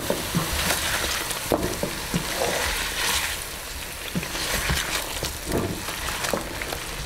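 Chicken pieces sizzling and frying in oil in a metal karahi, stirred with a wooden spatula that scrapes and knocks against the pan at irregular moments: the bhuna stage of frying the meat with its spices.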